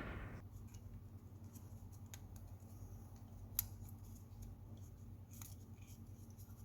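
Faint small clicks and taps of plastic remote-control parts being handled and fitted together, with one sharper click about three and a half seconds in, over a low steady hum.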